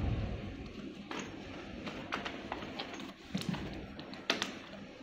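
A small plastic hardware packet being peeled off its card and torn open by hand: crinkling with a run of short sharp clicks, the loudest about three quarters of the way through.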